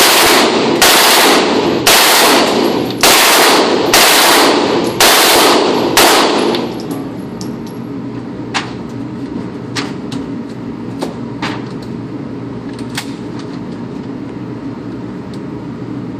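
Short bursts of fully automatic gunfire in an indoor range, about seven bursts roughly a second apart over the first six and a half seconds. After that only a few fainter single shots are heard.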